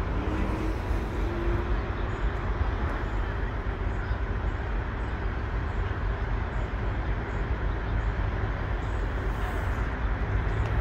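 Steady low rumble of engines and traffic, with a faint tone that rises slightly in the first second or two.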